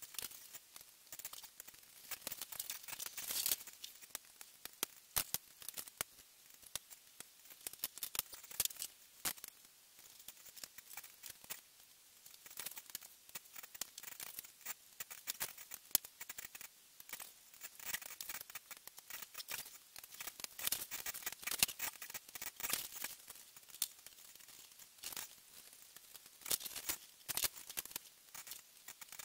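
Small plastic parts of a hydraulic cyber-hand model kit being handled and fitted together on a desk: irregular light clicks, taps and rustles.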